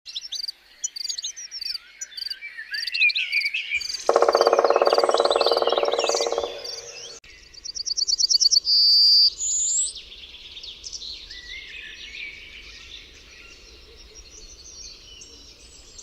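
Several wild birds singing and calling with high chirps and trills. About four seconds in, a loud, lower-pitched buzzing call runs for about two and a half seconds. After a sudden cut near seven seconds comes a fast high trill, then softer birdsong.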